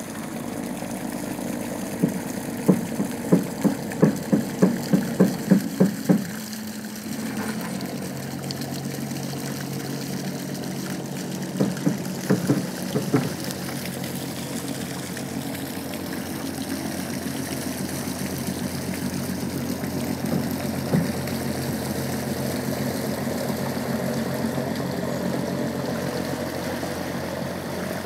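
Crab boat's diesel engine running steadily as the boat leaves its berth. A run of about ten sharp knocks comes a few seconds in, and a few more near the middle.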